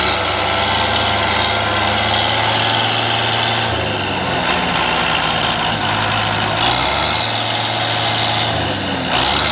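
Belarus tractor's diesel engine idling steadily, its pitch shifting slightly about four and again about seven seconds in.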